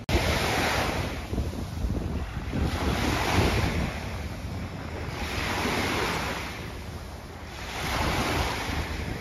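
Small waves breaking and washing up onto a sandy shore, each rising in a hiss about every two and a half seconds, four times. Wind rumbles on the microphone throughout.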